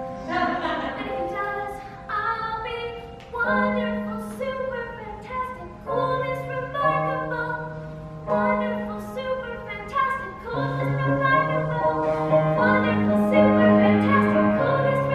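A young woman singing a musical-theatre song with piano accompaniment, the bass notes and chords changing every second or two.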